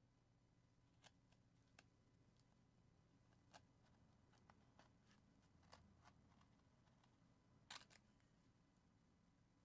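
Near silence, with faint scattered clicks and short scratches of an X-Acto blade cutting through the tape and tin foil covering of a puppet head form; a slightly louder crackle near the end.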